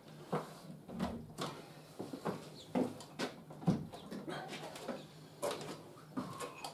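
Irregular wooden knocks and taps, about a dozen short clacks, as a timber handrail and newel post are handled and fitted together.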